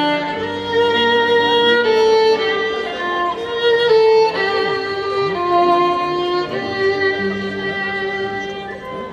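Background music led by a violin playing a slow melody of long held notes over a string accompaniment.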